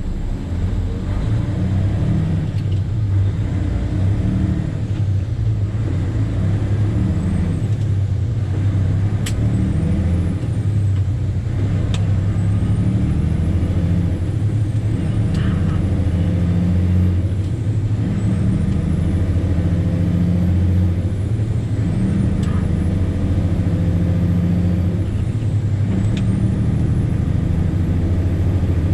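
Diesel engine of a loaded 2013 Western Star tandem dump truck running steadily under load as it is driven up through the gears of its 13-speed manual transmission. A faint high whine climbs and drops off several times as gears change, with a few sharp clicks along the way.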